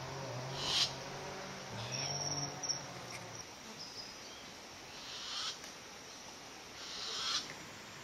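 Tropical forest ambience: a low hooting call, bending slightly in pitch, repeats through the first half, over a steady background hiss. Three short, rising buzzy swells are heard about a second in, past the middle and near the end, and a brief thin high whistle comes about two seconds in.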